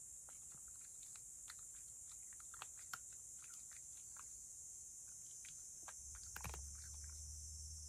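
A cat crunching dry kibble, faint scattered crunches and clicks at an irregular pace, with a quick louder run of clicks about six and a half seconds in.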